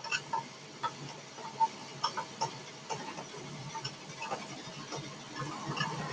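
Scattered light clicks and taps of hands handling thread and the plastic parts of a domestic sewing machine, a dozen or so irregular ticks over a faint steady background.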